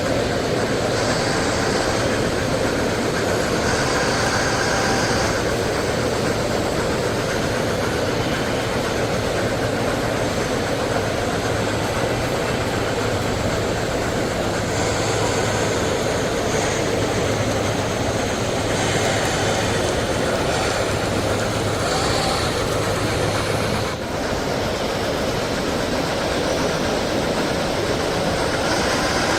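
Model trains running on the show layouts: a steady rumble and hiss with a low hum, and no clear single event standing out.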